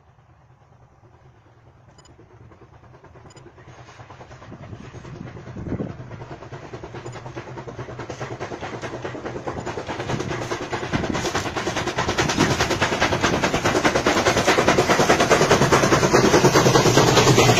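Steam locomotive hauling a train of passenger coaches, approaching and growing steadily louder, its rapid exhaust beats coming through more and more strongly.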